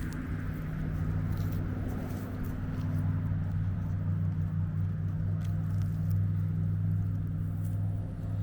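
Domestic cat purring steadily close to the microphone, a low even rumble that pulses gently with its breathing.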